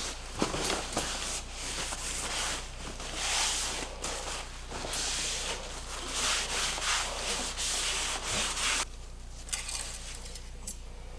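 Repeated rubbing strokes on a surface, an irregular run of swishes that stops abruptly about nine seconds in.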